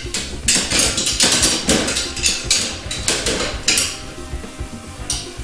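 Irregular metal clinks and clanks of a wrench and bolts against a steel tubing clamp as the clamp is tightened to stop an air leak.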